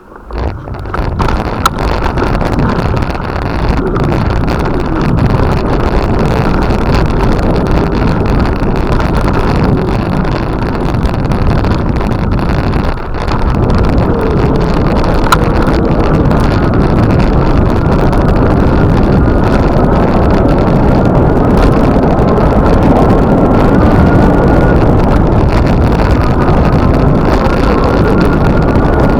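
Loud, steady rumble of travel with wind rushing over the microphone, starting suddenly at the beginning and holding steady, with a faint thin tone joining in the later part.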